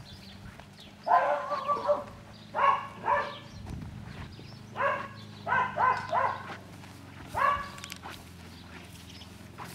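A dog barking repeatedly, about ten loud barks in short runs, stopping about eight seconds in.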